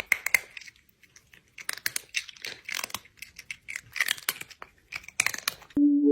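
Irregular crackling and rustling in quick clusters, like paper or a wrapper being crinkled or torn. Near the end a steady musical tone comes in.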